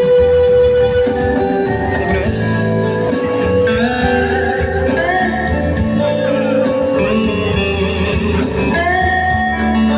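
Instrumental interlude of a Marian hymn's accompaniment: a held melody over chords and a steady beat, with no singing.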